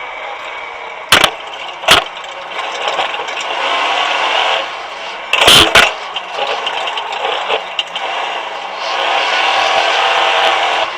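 Off-road racing buggy's engine revving hard and unevenly, rising and falling in pitch. Sharp loud cracks come twice about a second in, then a quick cluster about halfway.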